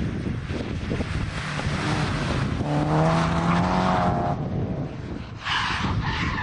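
Rally cars running hard at full throttle. The engine note steadies to a strong, held pitch from about three to four seconds in. A sudden hiss near the end comes as the next car arrives.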